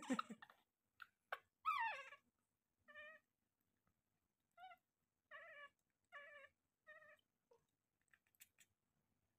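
Baby monkey calling faintly: one falling call about two seconds in, then about five short, high calls spread over the next few seconds.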